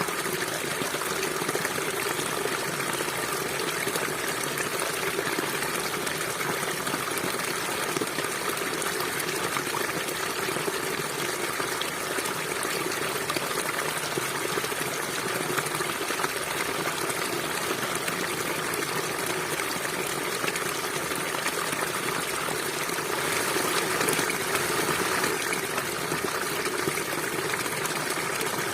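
River water flowing steadily over rocks, a constant rushing with a slight swell near the end.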